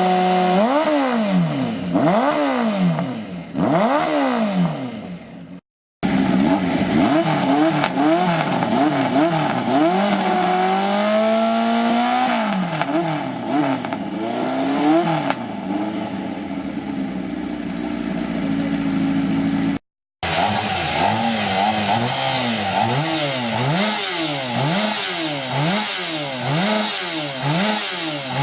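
Yamaha RD350 air-cooled two-stroke parallel twin being blipped over and over, its pitch rising and falling again and again, settling briefly to idle in places. The blips come quicker near the end. The sound cuts out twice for a moment.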